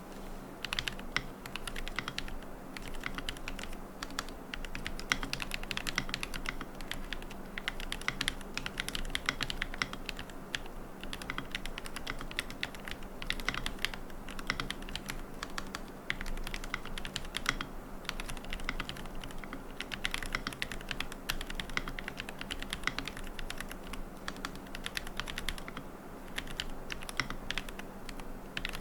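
Continuous typing on a QK75N mechanical keyboard with Gateron Moon Landing switches, a carbon plate, no foam and MilkyWay Poker keycaps. The keystroke clicks come in quick runs with brief pauses.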